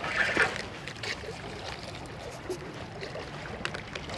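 Shallow sea water lapping gently over a rocky shore as a steady hiss, with a few faint clicks near the start and again about three and a half seconds in.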